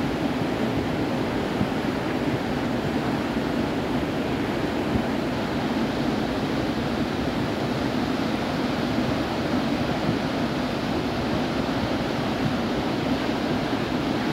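The Mandakini river in flood after heavy rain: a steady, deep rush of fast, high water churning over boulders.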